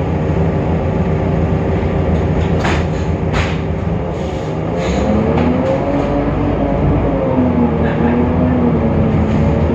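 Temsa Avenue LF city bus's DAF PR 228 diesel engine running under load, with a few sharp knocks and rattles in the middle; from about halfway a whining tone rises and wavers as the bus pulls away through its ZF Ecolife automatic gearbox. The uploader calls the bus's sound strange and different from normal.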